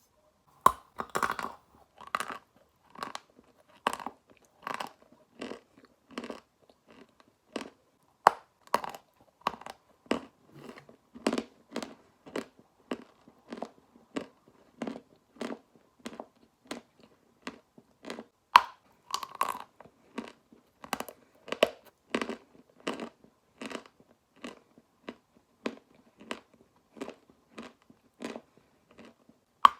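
Pieces of Khrapovsky chalk being bitten and chewed: a steady run of dry crunches, about one or two a second, with a few louder snaps where pieces are bitten off.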